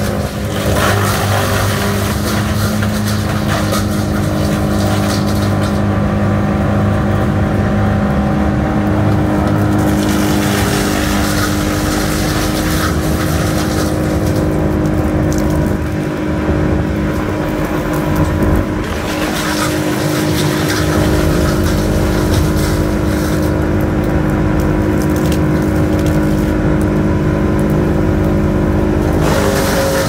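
Bandit Intimidator 12XP wood chipper with its 120 hp Cat diesel engine running steadily at working speed while pine brush is fed through. The chipping comes in several spells of loud crackling and grinding as branches go in, with only the engine's steady drone in between.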